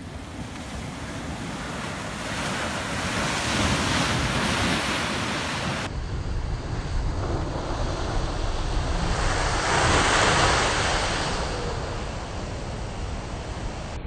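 Ocean waves surging in and crashing against a rock ledge, bursting into spray, with two big swells of rushing noise, the first about four seconds in and the second about ten seconds in.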